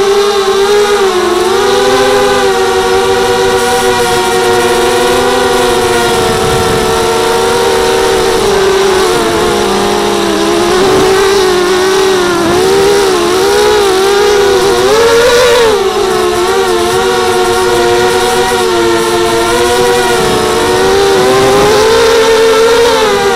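Mini quadcopter's motors and propellers whining in flight, a buzz of a few close pitches that swoops up and down with the throttle.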